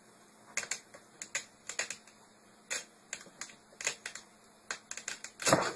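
A cat scrabbling around inside a laundry hamper: irregular scratches and clicks, with a louder burst near the end.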